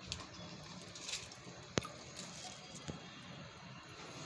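Faint water sloshing and dripping as chopped vegetables are lifted by hand from a steel bowl of water into a plastic colander, with one sharp click a little under two seconds in.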